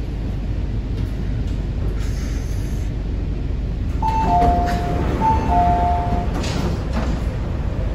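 MTR Kwun Tong Line C-train's door chime, a two-note high-then-low ding-dong played twice as the train stands at the platform and the doors open, over the steady low rumble of the car, with a short rush of noise just after the chime.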